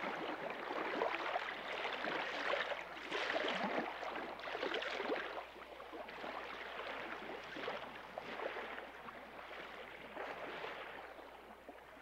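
Water rushing and splashing along the hulls of a sailing trimaran under way, coming in irregular surges and growing quieter after about five seconds.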